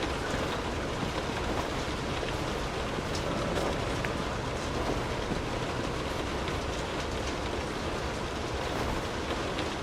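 Steady rain falling, with scattered individual drops striking a hard surface over an even hiss.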